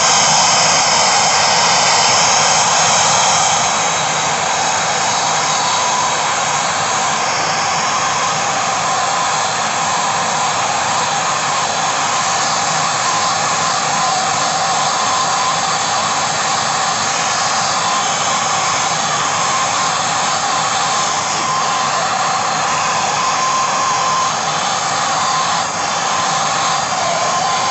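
Two gas torch flames running steadily, heating a wire-bound billet of 18k white gold and sterling silver layers on a charcoal block toward liquid-phase fusion. The rush eases slightly a few seconds in, then holds even.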